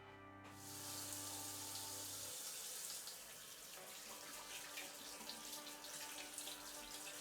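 Tap water running and splashing into a sink, starting about half a second in.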